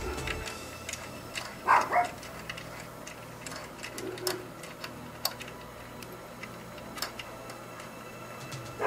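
Scattered light clicks and ticks of hands and tools working among parts at the front of a car engine, with two louder knocks close together a little under two seconds in.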